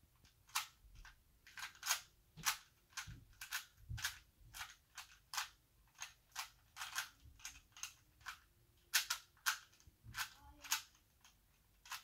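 Plastic Rubik's Cube layers being turned by hand: a run of sharp plastic clicks and clacks, irregular, roughly two a second, with a short pause near the end.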